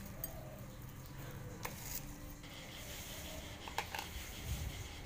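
Quiet room tone with a low hum and a few faint clicks.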